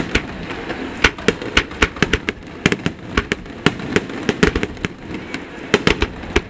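Fireworks finale: aerial shells bursting in a rapid, irregular string of sharp bangs, about three a second, over a continuous background rumble.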